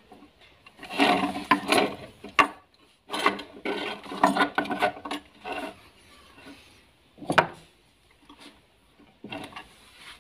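Small plastic electrical parts, a repaired switch and a lamp holder, being handled and fitted together: bouts of scraping and clicking, with one sharp click a little past the middle.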